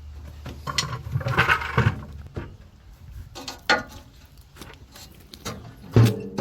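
Scattered clicks and knocks over a low hum that stops about two seconds in; music with drums comes in near the end.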